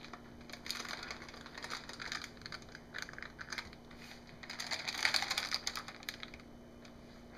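Irregular light clicking, scraping and paper rustling as a spatula and a gloved hand work soap batter along the paper-lined wooden loaf mold. The sound is busiest a little past halfway through, over a faint steady hum.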